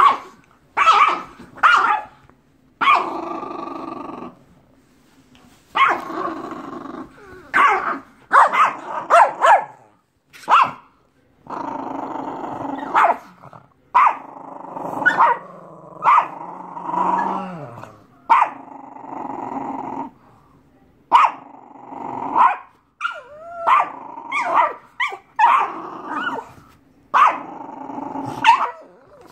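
Pug puppy growling and barking in play, a long string of short growls and sharp yaps in quick succession with brief pauses between.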